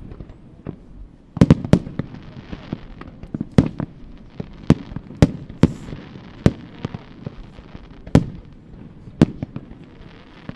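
Aerial fireworks display: shells bursting in about a dozen sharp bangs at irregular intervals, with a crackling hiss between them. The bangs bunch together about a second and a half in.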